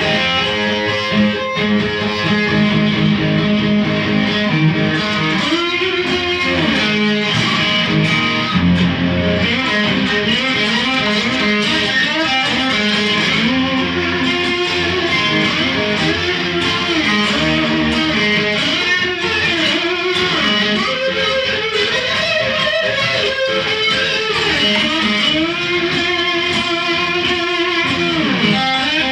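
Electric guitar playing continuously, a melodic line full of notes that bend or slide up and down in pitch.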